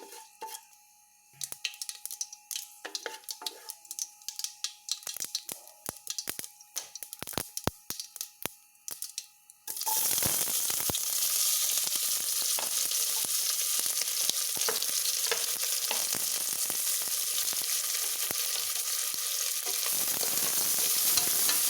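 Scattered sharp pops and clicks from the hot ghee and oil in the cooker with its spluttered mustard seeds. About ten seconds in, sliced onions hit the pan and it breaks into a steady loud sizzle as they start to fry.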